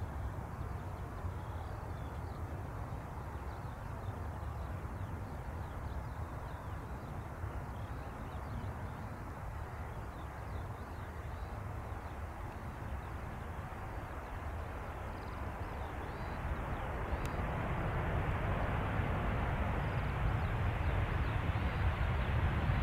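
Boeing 737 jet engines heard during landing and rollout: a steady rumbling jet noise that grows louder from about 16 seconds in. Faint bird chirps are heard over it.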